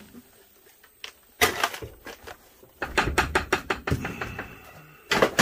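Clattering knocks and bangs of hard objects being jostled: one loud bang about a second and a half in, a quick run of about eight knocks around three seconds in, and another loud bang near the end.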